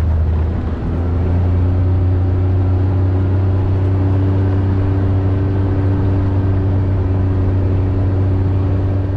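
Off-road vehicle's engine running steadily under load while climbing a gravel trail: a loud, even low drone with a brief dip about a second in.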